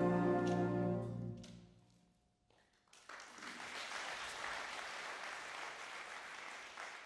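A jazz big band's final held chord (brass, saxophones and rhythm section) rings out and dies away over the first two seconds. After a brief silence the audience applauds steadily.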